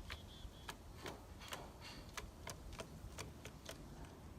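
Faint, irregular light clicking or ticking, about three to four clicks a second.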